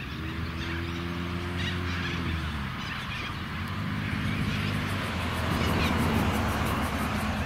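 A low, steady engine drone that cuts out about two and a half seconds in and comes back at a slightly different pitch, over a hiss that slowly grows louder.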